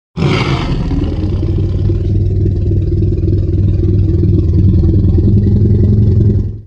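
Tyrannosaurus rex roar sound effect: one long, low roar that opens with a harsh, bright attack, then holds as a steady low rumble for several seconds before cutting off abruptly.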